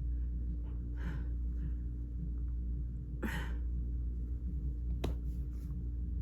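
Sniffing and breathing of a person with a head cold during a sneezing fit: a short sniff about a second in, a sharper, louder sniff a little after three seconds, and a click near the end, over a steady low hum.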